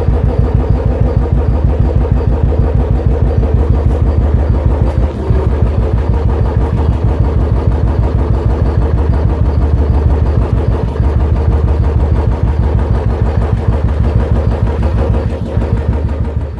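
Royal Enfield Bullet's single-cylinder engine running steadily through an aftermarket silencer, giving an even, regular exhaust thump.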